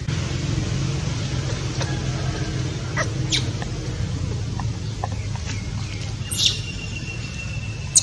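A baby macaque's short high squeaks, then one drawn-out high squeal near the end, over a low steady rumble.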